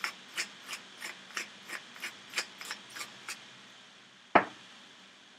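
Pepper mill being twisted over a bowl, its grinding going in short, even ratcheting strokes of about three a second, which stop a little after three seconds. One sharp knock follows about a second later.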